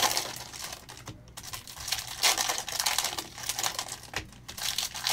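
Foil trading-card pack wrappers crinkling as packs are opened, and a stack of cards being slid and flicked through by hand, giving irregular clicks and rustles.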